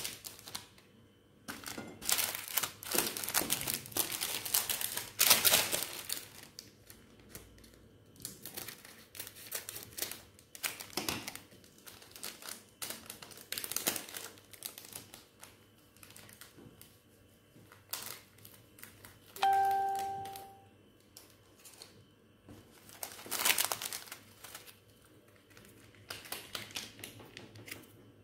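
Small plastic instant-noodle seasoning sachets crinkling as they are torn open and squeezed out, in irregular bursts of rustling. About two-thirds of the way through, a single bell-like chime rings and fades.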